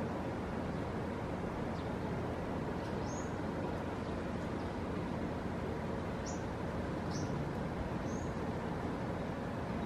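Steady wind noise with a few short, high bird chirps scattered through.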